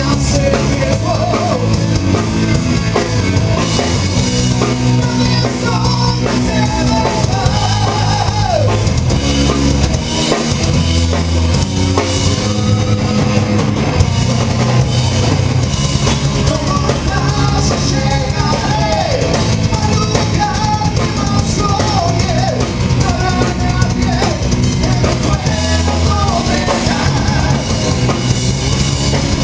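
Rock music played by a band: a drum kit keeping a steady beat under sustained bass notes, with singing over it.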